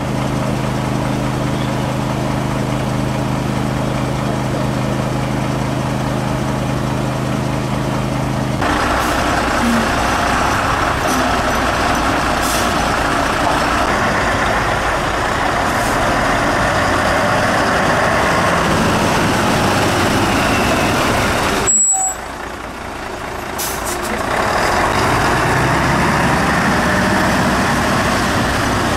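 Fire-engine diesel engines running at idle: a steady low hum at first, then changing abruptly about eight seconds in to a louder, rougher running sound with a brief dip near twenty-two seconds.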